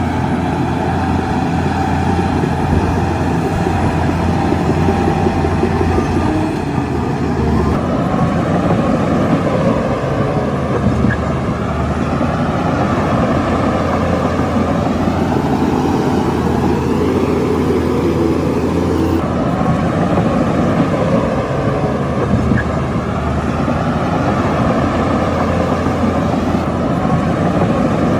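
Heavy diesel engine of a Shantui crawler bulldozer running steadily under load. The engine note shifts twice, about a third and two thirds of the way through.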